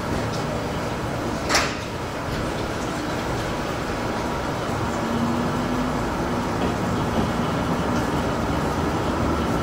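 Diesel railcar running on jointed track, heard from the cab: a steady engine and rolling noise that grows gradually louder as the train gathers speed, with one sharp click about a second and a half in.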